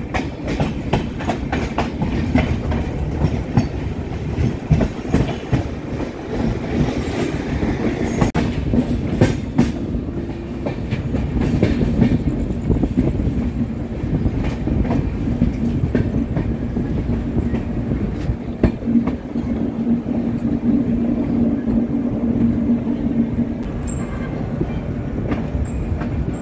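LHB passenger coach wheels running over rail joints and points, heard from an open coach door: a dense clickety-clack for about the first ten seconds, then a steadier rumble with a low hum as the train slows into the station.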